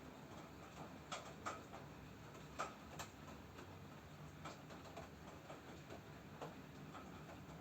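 Water drops from a rainstorm tapping irregularly on a hard surface: sharp single ticks at uneven intervals, a couple of them louder, over a faint steady low hum.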